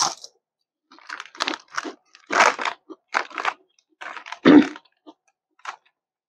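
Paprika-flavoured Lay's potato chip bitten and chewed close to a lapel microphone: a crisp bite, then a run of separate crunches that die away about five and a half seconds in.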